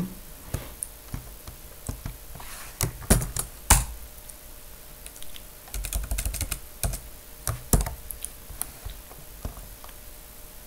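Computer keyboard being typed on in irregular clusters of key clicks, with a few harder keystrokes about three to four seconds in.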